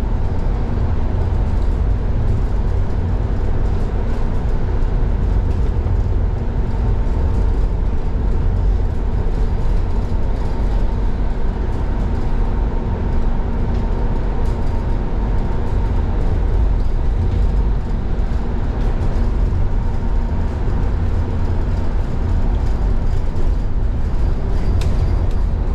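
Inside an Irizar ie tram battery-electric bus cruising at speed: steady low road and tyre rumble with a faint steady hum.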